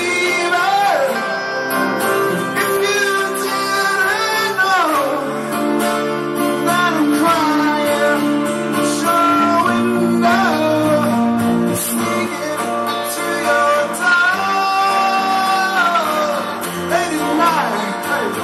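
A live band of two acoustic guitars and an electric guitar playing a song, the acoustics strumming chords under a melody of long held notes that slide up and down between pitches.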